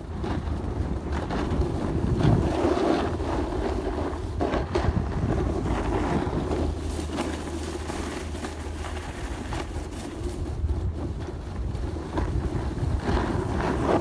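Snowboard sliding and carving down a groomed slope, its base and edges scraping steadily over the snow, with wind buffeting the phone's microphone in a low rumble.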